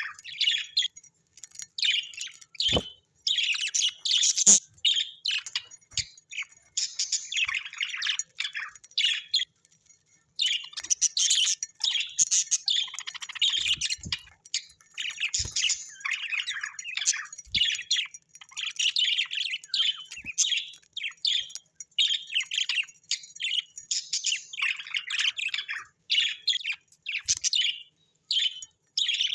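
Pet parrots chirping and chattering almost without pause in quick, high-pitched twittering phrases, with a few faint knocks among them.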